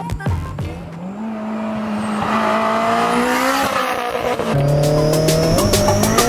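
Turbocharged SR20DET four-cylinder of a Nissan 240SX S14 running hard at high revs while drifting on dirt. The revs hold, drop briefly about four and a half seconds in, then climb and hold again.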